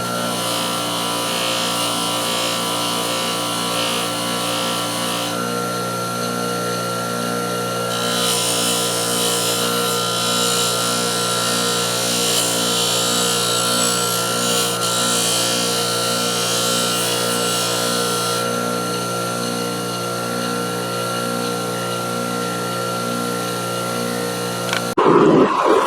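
Electric bench polishing motor running steadily while the steel cutters are pressed against its spinning wheel, a high grinding hiss coming and going as the metal touches the wheel. Near the end the sound changes abruptly to a louder, rougher noise.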